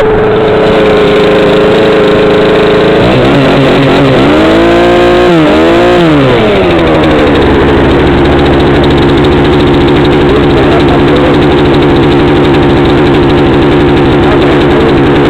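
An engine running steadily and loudly. About three seconds in its pitch drops, swings up and down for a few seconds, then settles at a lower steady pitch.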